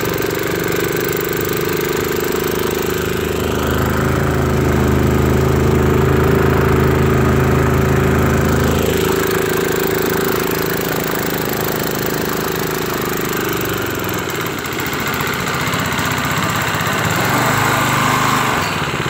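A homemade mud motor's Harbor Freight air-cooled vertical-shaft engine runs under throttle, driving the long-tail prop so the boat is underway, with water wash behind. Its note shifts about nine seconds in, eases a little around fourteen seconds, and picks up again near the end.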